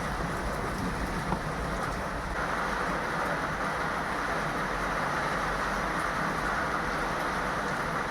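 Steady rain falling, an even hiss that grows a little heavier about two and a half seconds in.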